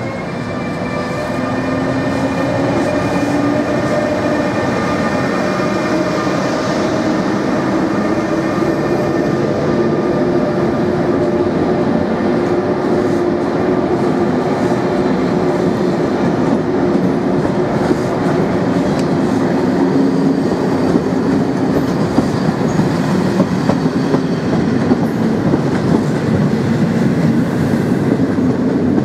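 ÖBB class 1116 Taurus electric locomotive's traction converter singing its stepped rising scale, slower than usual as it pulls away with a very long, heavy train. Loudness builds over the first few seconds. Then the passenger coaches roll past with a steady rumble and the clickety-clack of wheels over rail joints.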